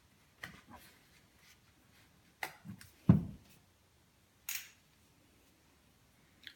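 A pike burping once, a short low gulp about three seconds in, with a few faint clicks around it.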